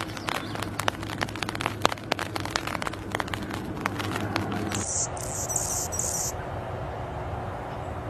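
Birds chirping: many short, sharp chirps in quick succession. About five seconds in the sound changes abruptly to four high, buzzy notes in a row, followed by a steady background.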